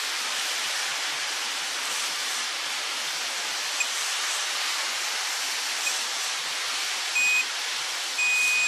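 Steady background hiss. Near the end, a digital multimeter's continuity beeper gives one short beep and then a continuous beep as the probes find a dead short across a part on the inverter's power board.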